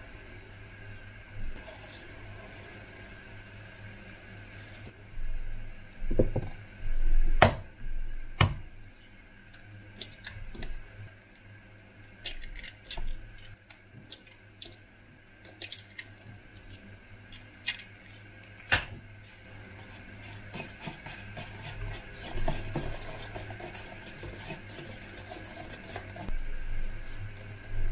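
Preparing batter in a stainless steel mixing bowl. Flour hisses faintly as it is poured from a glass jar, then there are scattered knocks and taps on the bowl as eggs are cracked in. Over the last several seconds a wire whisk beats the batter with rapid clicking against the metal bowl.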